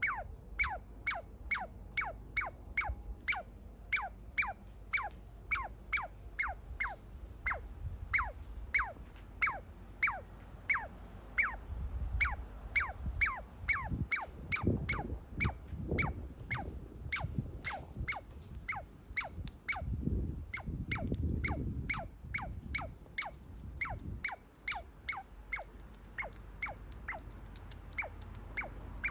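Baby squirrel squeaking over and over, about three short falling squeaks a second, which the owner calls screaming out of excitement. Through the middle stretch, low crunching comes in from the squirrel chewing on a walnut.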